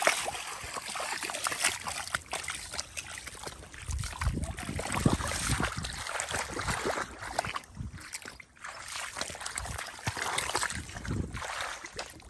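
Legs wading through shallow muddy water: irregular sloshing and small splashes, with a few heavier low thuds of feet pulling through the mud.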